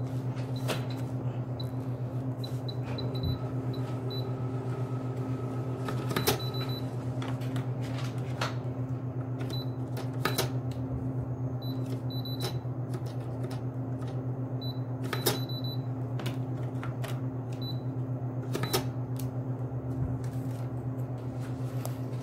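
Steady low hum with scattered, irregular sharp clicks and taps as a ballpoint pen writes on a paper form on a hard counter.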